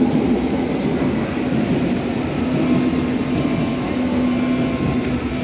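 Class H01 U-Bahn train standing at an underground platform: a steady rumble with a constant low hum.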